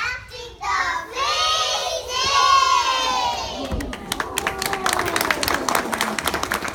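A group of young children shouting together in one long, drawn-out call, followed about four seconds in by an audience clapping.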